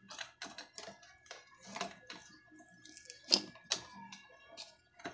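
Irregular clicks and knocks of a metal spin-dryer motor being handled and seated on its mounting in a plastic dryer base, with one sharper knock a little past three seconds in.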